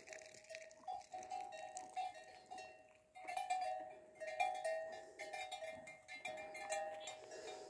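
Bells on grazing cattle ringing and clanking irregularly at a few fixed pitches as the animals move.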